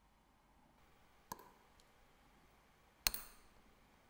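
Small sharp metal clicks from a watch movement and steel tweezers being handled in a metal movement holder: a light click with a brief ring, a faint tick, then a louder, brighter click near the end that rings briefly.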